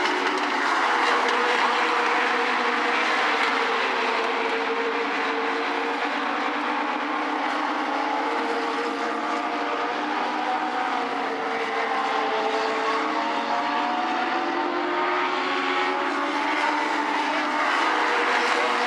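Engines of several Legends race cars running together, their Yamaha motorcycle engines rising and falling in pitch as they circle the track.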